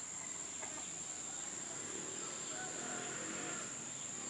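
Outdoor ambience: a steady high-pitched insect drone, with a few faint animal calls, like distant clucking, around the middle.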